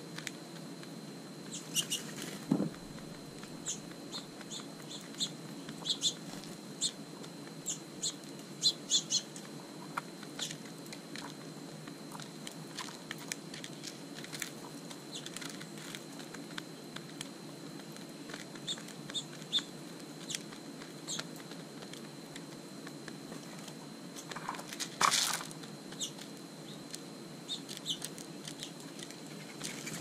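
Mourning doves pecking at seed in a plastic feeder dish: scattered light clicks and ticks, with a brief louder wing flutter about 25 seconds in.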